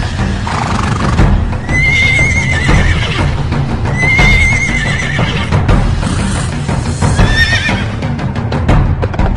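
Recorded music with a clip-clop beat, with three short, quavering, high horse whinnies laid over it, about two, four and seven seconds in.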